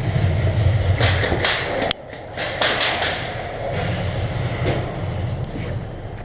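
Airsoft gunfire in a hall: a few sharp shots about a second in, then a quick string of about five more, over a low steady rumble.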